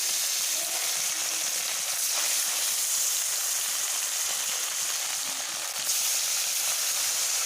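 Pieces of pond fish frying in hot mustard oil in a kadai, a loud, steady sizzle.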